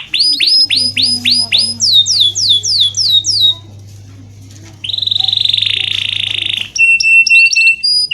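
Domestic canary in vigorous full song: a rapid run of falling whistled notes, about four a second, that steps up higher partway through. After a short pause comes a fast buzzy trill, then a few short clipped notes near the end.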